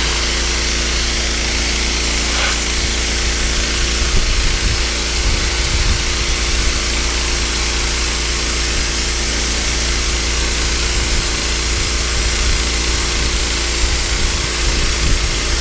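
Pressure washer running steadily, its wand blasting a jet of water onto weathered wood deck boards to strip mold and mildew: a loud, unbroken spray hiss over the steady drone of the washer's engine.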